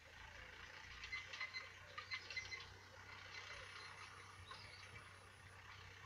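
Faint chorus of small songbirds chirping and twittering in short scattered bursts, over a low steady hum.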